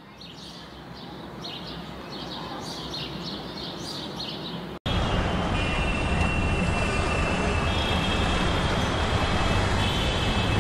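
Park ambience fading in: birds chirping over a low hum of distant traffic. About five seconds in it cuts abruptly to louder, steady city traffic noise with a few steady high tones.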